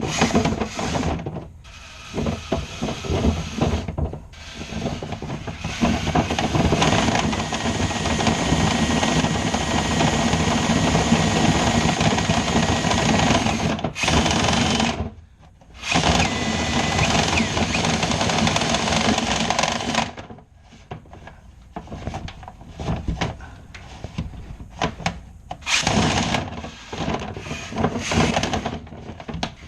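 Power drill spinning a dryer-vent cleaning brush on rods inside the vent duct, the brush scraping in the pipe. It runs steadily, stops briefly about fourteen seconds in and again around twenty seconds, after which it comes in short bursts.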